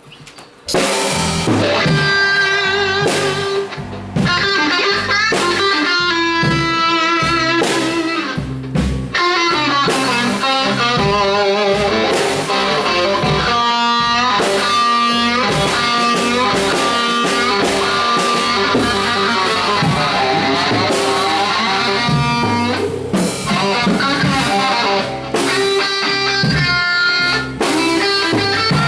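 Live band playing an instrumental passage: an electric guitar lead with wavering, bending notes over a drum kit and bass, starting up about a second in.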